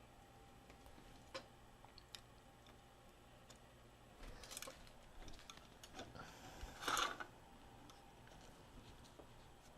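Faint clicks and taps of small tools being handled at a soldering bench, with a short scratchy noise about seven seconds in.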